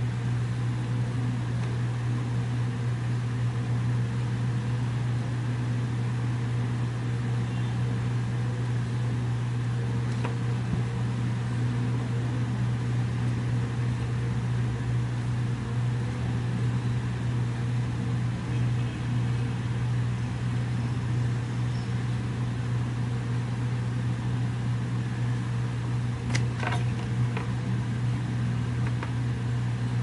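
A steady low hum throughout, with a few faint clicks near the end.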